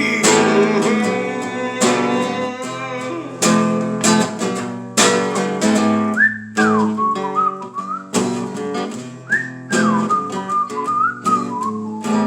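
Acoustic guitar strummed in a steady rhythm as a song's instrumental ending, with a whistled melody joining in two phrases from about halfway through.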